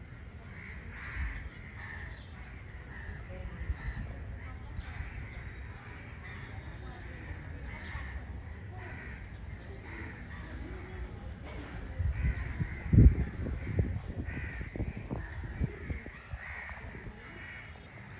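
Crows cawing over and over in short repeated calls. A cluster of low thumps comes about twelve seconds in; the loudest of them is the loudest sound of the stretch.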